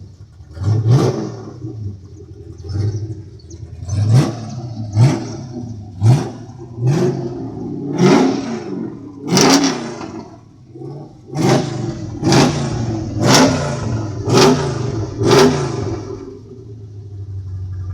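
Ford F-100 pickup's V8 engine revved in short repeated blips, about one a second, each rising and falling in pitch, then settling back to a low, even idle near the end.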